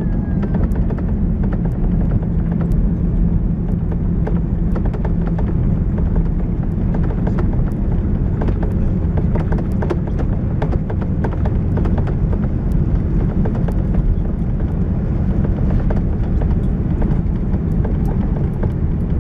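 Steady low rumble inside an Airbus A330 cabin beside its Rolls-Royce Trent engine, with many short irregular clicks and rattles over it.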